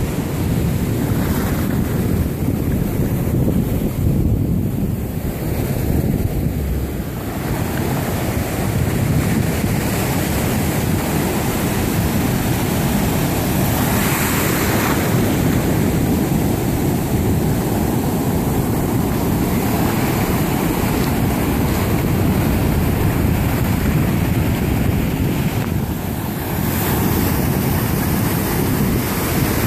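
Ocean surf breaking and foam washing up the shore, with wind buffeting the microphone. The hiss of the water swells about halfway through and again near the end.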